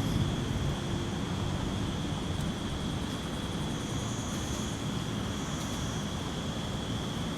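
Outdoor night ambience: a steady high-pitched trill, typical of a summer insect chorus, over a low steady rumble of distant traffic.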